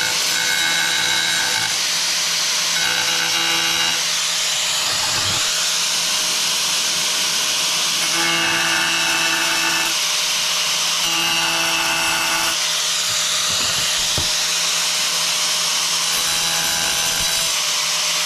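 Power tool running steadily while cutting into a thin, brittle ceramic tile, with a whine that comes and goes every second or two under a constant hiss and hum.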